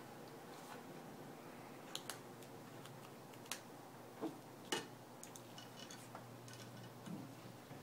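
Faint scattered clicks and taps of small hardware being handled as a screwdriver is brought to a self-threading screw to fasten a hook-and-loop strap to a plastic mount.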